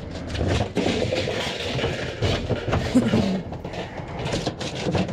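Thin galvanized sheet-metal ductwork crumpling and rattling under boots as it is stood on and flattened, a dense run of metallic crinkling and clatter.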